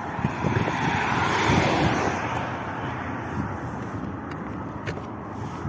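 Road traffic hissing past on a fast road, swelling to its loudest about a second and a half in as a car goes by, then easing off.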